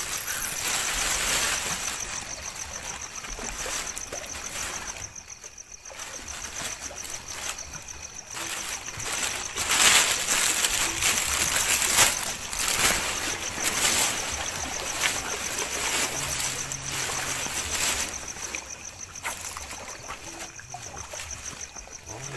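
Lake water lapping and splashing against shoreline rocks in uneven surges, loudest around ten to thirteen seconds in.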